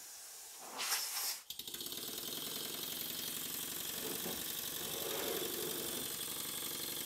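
Stuart Models S50 model mill engine running on compressed air: a short hiss of air about a second in, then from about a second and a half the engine runs fast with rapid, even exhaust beats.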